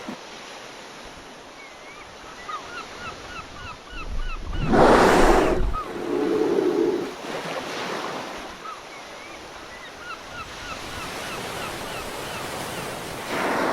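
Sea waves washing, with one louder wave surging in about five seconds in. Several runs of short, quick bird chirps are heard over the surf.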